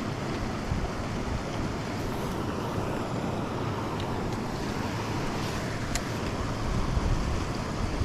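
Steady rush of river water, with wind rumbling on the microphone and a couple of faint clicks partway through.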